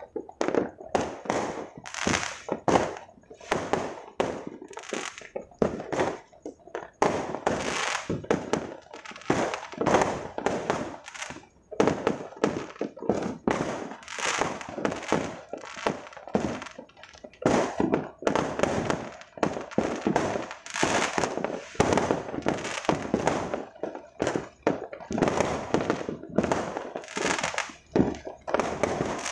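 Fireworks going off in quick succession: a dense string of sharp bangs and crackles, several a second, with short lulls at about twelve and seventeen seconds in.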